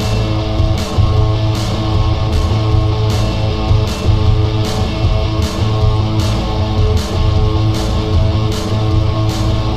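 Guitar-driven rock music with a heavy bass line and a steady beat.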